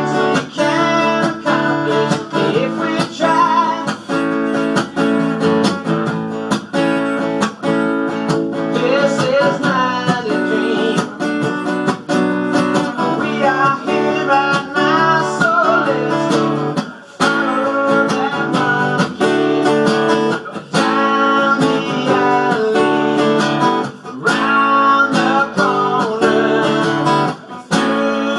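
Acoustic guitar strummed and picked in a steady rhythm, played live through a small club's sound system.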